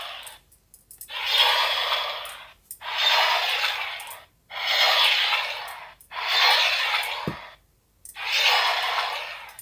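Bandai DX Nichirin sword toy's speaker playing its Water Breathing Flowing Dance slash sound effect, a noisy whoosh, five times about a second and a half apart. One effect plays for each swing of the sword, picked up by its motion sensor.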